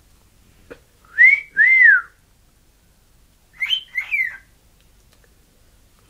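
Pet cockatiel whistling a learned tune: two clear notes that rise and fall about a second in, then two higher, harsher notes that fall away about halfway through.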